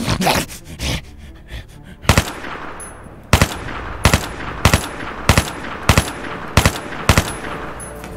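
Rifle gunshot sound effects: a quick burst in the first second, a single shot about two seconds in, then steady single shots about one every two-thirds of a second, each with a short echo.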